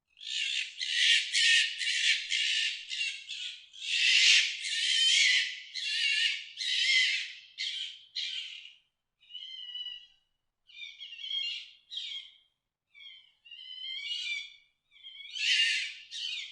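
Fox calling: a close run of harsh, raspy screeches, then from about nine seconds in shorter, more tonal yelps with gaps between them.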